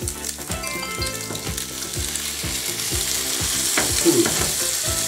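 Butter sizzling steadily in a hot non-stick frying pan as slices of egg-and-milk-soaked bread are laid in to fry for French toast, with a low beat repeating about twice a second underneath.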